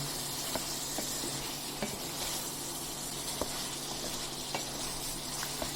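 Chicken pieces sizzling in spiced oil in a pan as they are fried down (bhuna), nearly done, with a few sharp clicks of the stirring spoon against the pan.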